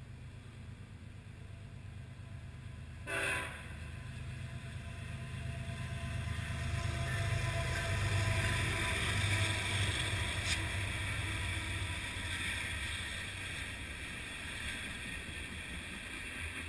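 Union Pacific freight train passing: the diesel locomotives' low rumble builds to its loudest as they go by about eight seconds in, then gives way to the steady rolling noise of freight cars. A short, loud burst sounds about three seconds in.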